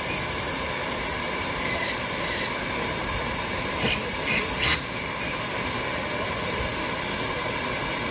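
Steady hiss of steam escaping from a miniature steam traction engine, with three short louder spurts about halfway through.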